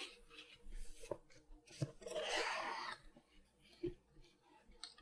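Small cardboard box being opened by hand: a few light taps and clicks, with about a second of cardboard flaps and paper rustling near the middle.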